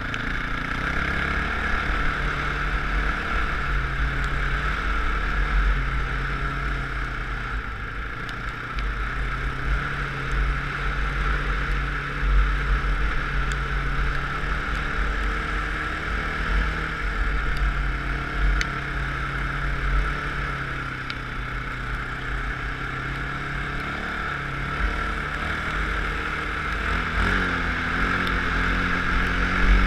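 Off-road vehicle engine running under way across sand, its pitch rising and falling with the throttle, heard from a helmet camera with wind rushing on the microphone.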